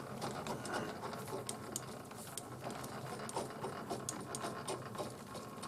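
Metal lathe running with a steady hum, with scattered small clicks and ticks.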